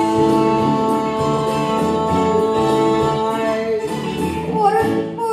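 Musical-theatre singing with instrumental accompaniment: the voices hold one long note for about four seconds, then slide to a new note near the end.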